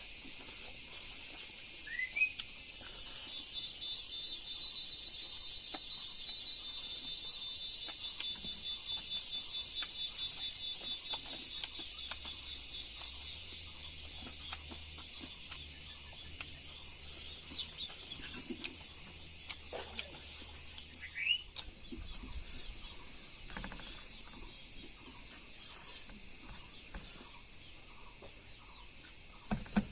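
Steady high-pitched chorus of insects trilling, with a fast pulsing trill strongest in the first third. A short rising bird chirp comes about two seconds in and another about twenty-one seconds in, among scattered faint clicks.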